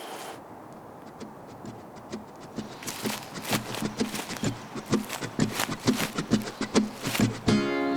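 Clopping steps drawing closer: irregular knocks that grow steadily louder, followed by a short buzzing tone just before the end.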